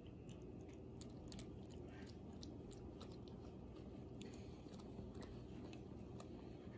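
Domestic cat licking and chewing at its front paw close to the microphone, eating from it: faint, irregular small wet clicks.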